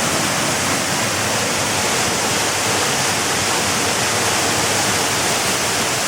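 Waterfall: a steady, loud rush of falling water, an even hiss that fills everything from low to high.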